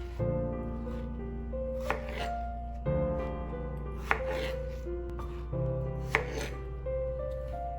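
Soft background music with sustained notes, with a short sharp knock and a brief hiss about every two seconds, four times.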